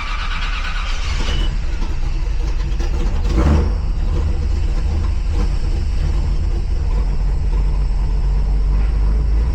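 1957 Chevrolet Bel Air's engine running steadily with a deep rumble, with a brief louder swell about three and a half seconds in.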